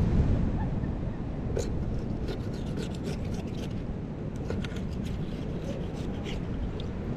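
Knife blade scraping mussel meat out of its shell on a cutting board: a run of short scrapes and clicks of steel on shell.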